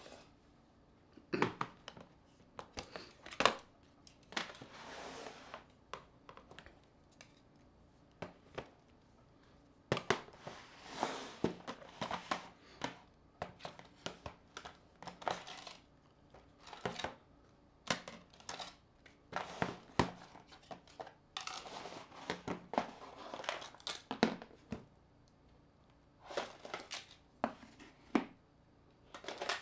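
Mobile phones being handled and set down one after another on a table: a series of sharp clacks, with several stretches of rustling and crinkling as plastic is handled.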